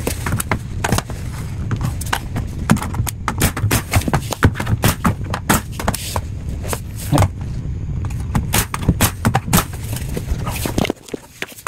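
Pneumatic brad nailer firing repeatedly into baseboard trim: sharp, irregular snaps, several a second, over a steady low hum that stops near the end.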